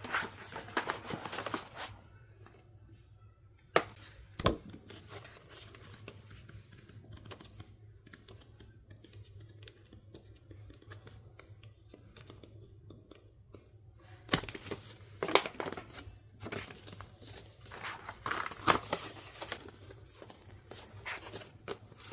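Packaging being handled and torn open by hand: bursts of crinkling and tearing, with two sharp clicks about four seconds in and a quieter stretch in the middle before the crinkling starts again.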